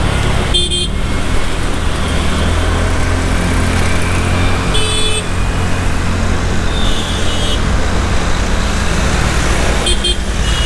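TVS Ntorq 125 scooter running on the road and picking up speed, with a steady low rumble of engine and wind on the microphone. Short horn beeps from surrounding traffic sound several times over it.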